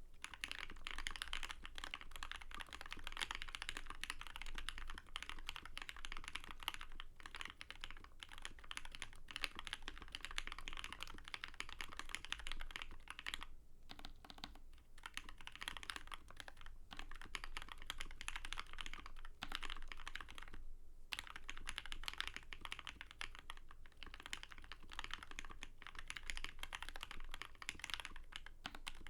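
Mechanical keyboard with a brass plate, lubed and filmed Lavender switches and GMK keycaps being typed on continuously at a quick, even pace, the keystrokes clacking with a few brief pauses.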